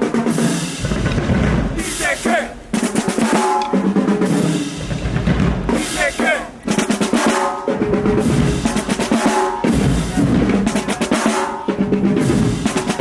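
Marching band drumline playing a cadence: rapid snare-drum rolls over bass-drum hits, with cymbal crashes about every two seconds.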